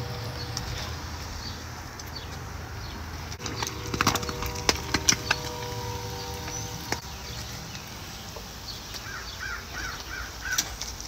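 Tilapia frying in a pan of oil over a wood fire, with a steady sizzle. Several sharp clicks of the metal tongs come about four to five seconds in, and a steady tone hums for a few seconds. Birds chirp near the end.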